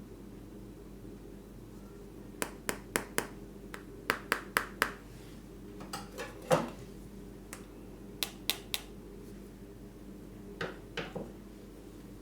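Small hard items clicking and tapping as a new smartphone and its box parts are handled: a quick run of about eight sharp clicks, a louder knock, three more clicks, then a couple of softer knocks near the end, over a steady low hum.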